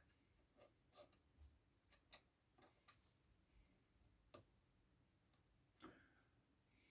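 Near silence with faint, irregular small clicks and short scrapes: a plastic spudger picking and scraping old adhesive sealant off the inside of an iPhone 6s's metal housing.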